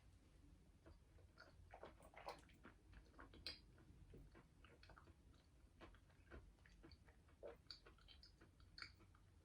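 Faint chewing of a piece of natural lump chalk: a scatter of small soft crunches and mouth clicks. The chalk softens into a paste rather than grinding on the teeth.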